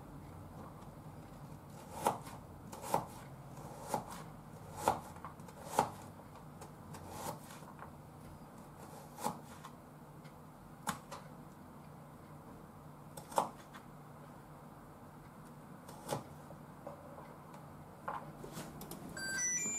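Kitchen knife dicing a carrot on a cutting board: sharp, irregular knocks of the blade striking the board, roughly one a second, with quieter cuts between.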